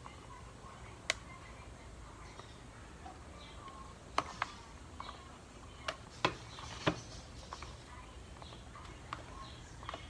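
Sharp scattered clicks and taps of fingers and ripe black pepper berries against a bowl as the berries are squeezed by hand to strip off their pulp, with faint short chirps in the background.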